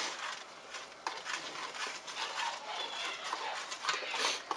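A spoon scraping and knocking against the inside of a stainless steel pot while stirring hot, thick blueberry jam, in a run of irregular strokes.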